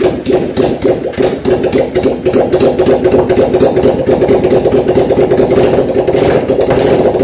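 Yamaha Virago 535's air-cooled V-twin running steadily with a fast, even beat, just after catching. It is fed by gravity from a plastic bottle in place of its original fuel pump, and it starts and runs fine on it.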